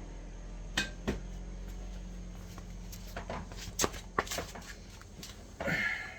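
Metal tools and parts clinking and tapping against each other, a dozen or so separate sharp clicks with short ringing, during work on a motorcycle's rear wheel and axle. A steady low hum runs underneath.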